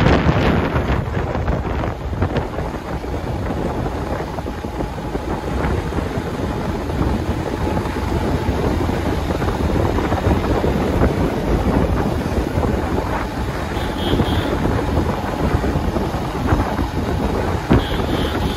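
Wind buffeting the microphone in a loud, uneven rumble, with a couple of faint short high beeps about fourteen seconds in and near the end.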